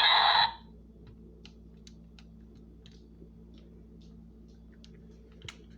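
A loud half-second noisy burst set off by a button press, followed by scattered faint clicks.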